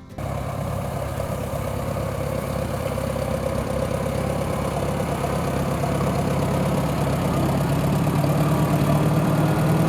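Tractor engine running steadily, growing gradually louder as it comes closer.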